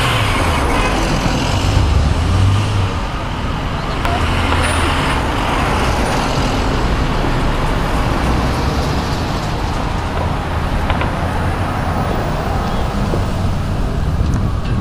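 Engines and tyre noise of slow-moving emergency vehicles passing close by: an ambulance, then a pickup and an antique fire truck, giving a steady low engine hum.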